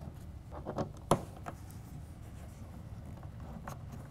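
A few faint clicks of metal parts being handled as a factory Torx bolt is fitted through a truck-bed tie-down cleat, with one sharper click about a second in, over a low steady hum.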